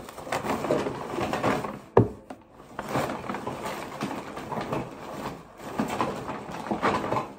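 A brown paper bag rustling and crinkling as hands rummage inside it, with a sharp knock about two seconds in.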